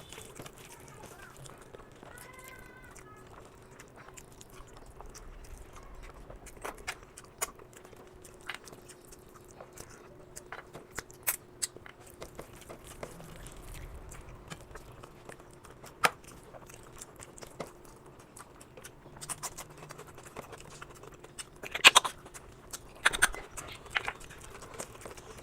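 A person eating rice and chicken curry close to the microphone: chewing and mouth smacks with scattered sharp clicks, the loudest two near the end, over a faint steady hum.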